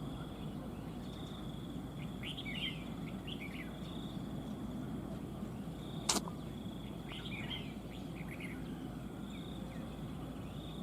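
Red-whiskered bulbuls calling in two short bursts of quick, chirpy notes, about two seconds in and again about seven seconds in. Under them runs a faint, high, steady whine, and there is a single sharp click a little after six seconds.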